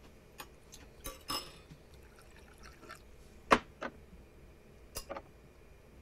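Spoons and chopsticks clinking against ceramic soup bowls and cups during a meal. The clinks are scattered and light, with the loudest a little past the middle.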